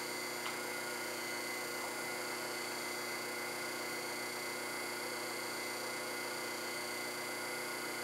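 Taig benchtop lathe running at a steady speed: an even motor hum with several steady high whining tones, while an abrasive pad is held against the spinning brass workpiece.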